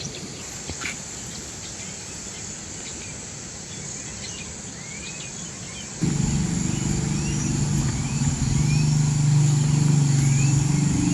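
Outdoor ambience: a steady high hiss with a short rising chirp repeating about once a second. About six seconds in, a loud, steady low rumble starts abruptly and continues under the chirps.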